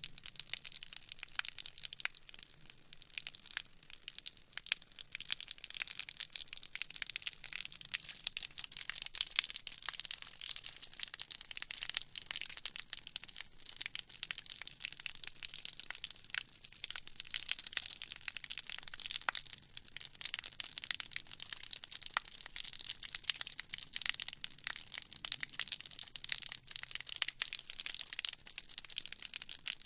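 Water sound effect: a steady, dense crackling fizz of many tiny pops and clicks, mostly high-pitched, with no change in character.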